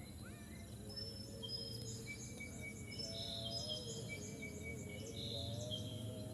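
Rice-field evening ambience: birds giving short, clear whistled notes and chirps over a steady high insect drone and a low rumble of wind. A faint wavering melodic line sits low in the background.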